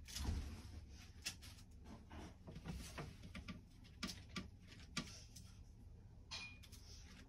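Faint, irregularly spaced clicks and light knocks over a low steady rumble, with a short high squeak about six seconds in.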